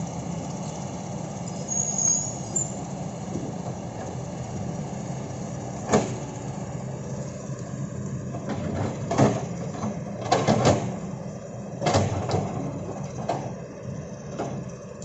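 Kobelco excavator's diesel engine running steadily, with a series of sharp metallic knocks and clanks from the machine working, several of them close together about two-thirds of the way through.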